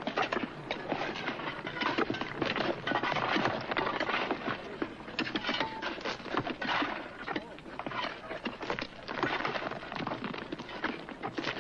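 Pickaxes striking rock and loose stones clattering in a dense, irregular run of sharp knocks.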